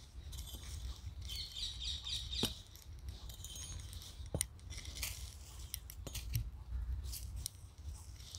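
Small metal hand hoe scraping and chopping through loose compost soil and dry leaves, with a few sharp clicks where the blade strikes.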